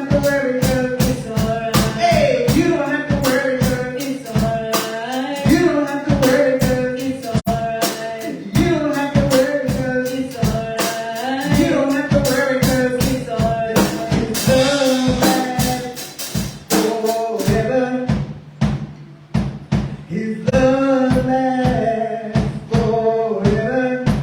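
Gospel music: a band with a steady drum-kit beat and bass under a sung melody line.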